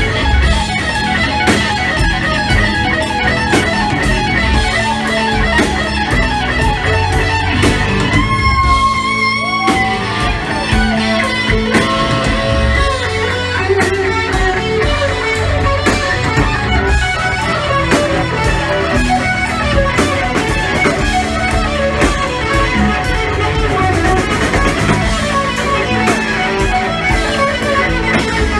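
Live band with electric guitar leading over drums, bass and keyboard. The red hollow-body electric guitar plays fast note runs, then a long held note about eight seconds in, followed by sliding, bent notes.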